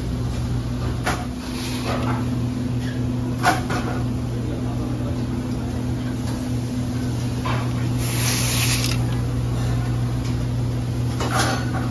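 Steady low hum of kitchen equipment, with scattered knocks and clatter and a short hiss about eight seconds in.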